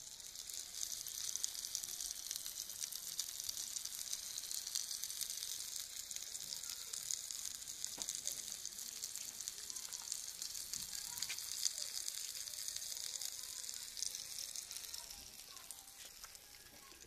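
Salmon fillet sizzling and crackling in hot oil on a black griddle pan heated by a parabolic solar cooker. The sizzle grows fainter near the end.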